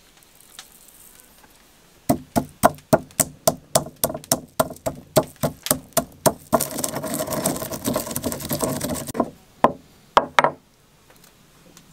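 Stone pestle pounding whole peppercorns and seeds in a stone mortar, sharp knocks about four a second, then a few seconds of steady grinding as the spices are worked to powder. A few last knocks come near the end.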